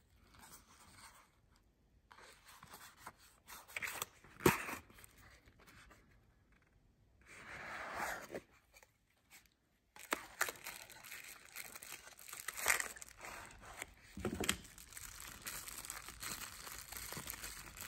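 Handling of a small cardboard box: scattered taps and scrapes as its flaps are opened. From about ten seconds in, a bubble-wrap bag crinkles and crackles as it is turned in the hands.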